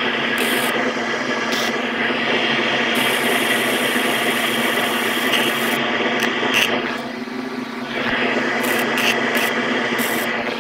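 Flux-core (self-shielded wire) welding arc from a MIG welder, sizzling steadily as a bead is run on steel tube. It fades briefly about seven seconds in and picks back up about a second later. The heat is set too high, enough to burn through the thin tube wall.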